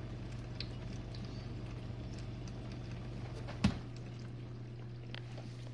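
GE Profile dishwasher running its final rinse: a steady motor hum with water spraying and splashing inside the tub. A single knock sounds about three and a half seconds in, after which the deep rumble under the hum drops away.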